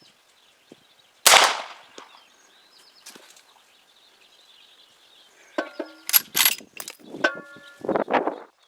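A single loud shot from an 1873 Winchester-pattern lever-action rifle in .45 Long Colt about a second in, with a short echoing tail. In the second half come a series of sharp metallic clacks and brief ringing clinks, with a heavier clack near the end, typical of the lever being cycled and the spent case ejected.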